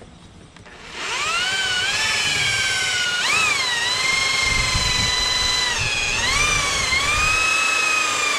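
Corded electric drill boring a small test hole into a fiberglass hull. The motor whine starts about a second in, climbs in pitch, and its speed dips and picks up again twice as it runs on.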